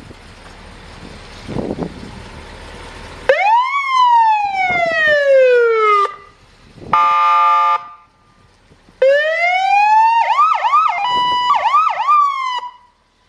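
Fire truck's electronic siren sounded in short bursts: a wail that climbs quickly and slides down, a brief steady horn-like blast, then a rising tone that breaks into a fast yelp and cuts off.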